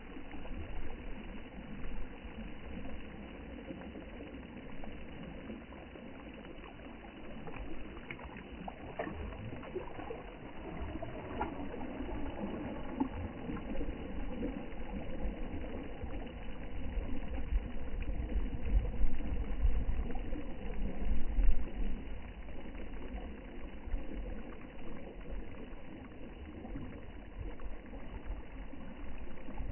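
Sea water sloshing with wind gusting on the microphone, swelling louder about two-thirds of the way through.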